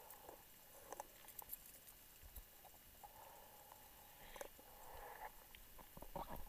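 Near silence underwater: faint scattered clicks and taps, with a few soft, brief hisses.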